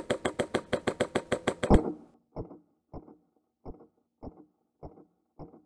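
Airsoft rifle firing a rapid burst, about eight shots a second, that stops about two seconds in. After it, duller single clicks follow about every half second.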